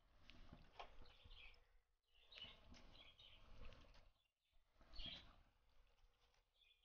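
Near silence, with faint bird chirps in the background and a few faint knocks about a second in and again near five seconds.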